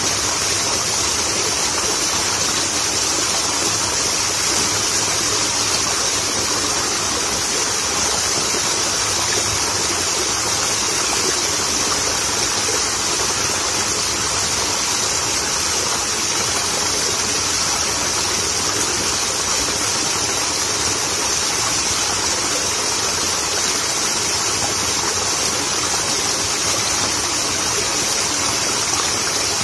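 Small waterfall pouring over a ledge into a ditch pool: a steady, unbroken rush of splashing water.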